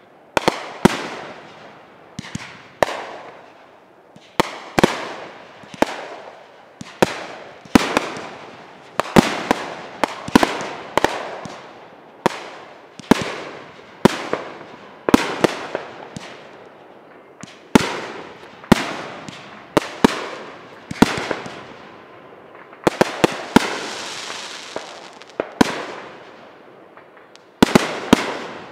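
Aerial fireworks shells bursting one after another, a sharp bang about every second, each dying away over half a second or so. Near the end there is a longer rush of crackling noise lasting about two seconds.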